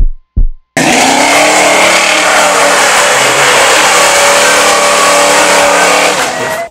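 Two deep thumps of a heartbeat sound effect, then from under a second in a car engine held at high revs with its rear tires spinning in a burnout, until it cuts off at the end.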